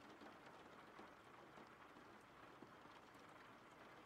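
Faint, steady rain with scattered light drop ticks.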